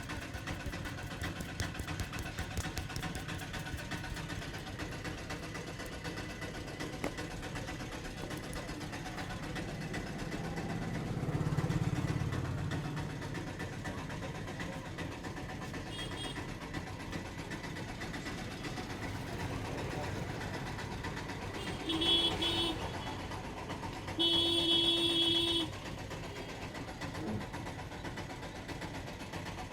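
Road traffic: a vehicle engine rumbles past about a third of the way in, and near the end a horn honks twice, a short beep and then a longer one of about a second and a half.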